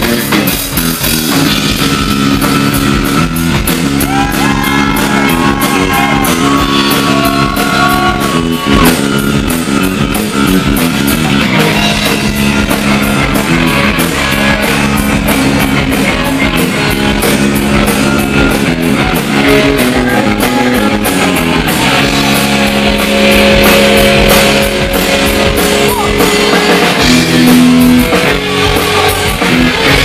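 Live rock band playing loud: a Les Paul-style electric guitar over electric bass and a drum kit keeping a steady beat.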